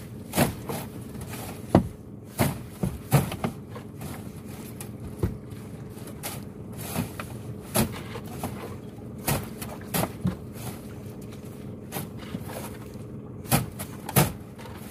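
Green mesh fishing net hauled and shaken by hand in a boat, with irregular knocks and rustles as the net and its gear strike the boat's side, over a steady low hum.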